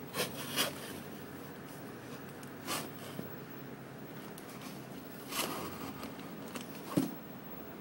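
A folding knife slitting the tape and cardboard of a shipping package, in a few short rasping strokes with rustling between them, and a sharp knock near the end.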